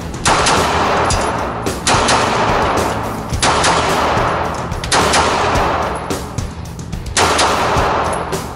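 Five 9mm pistol shots, about a second and a half apart, each with a long echoing tail from the enclosed range, over background music.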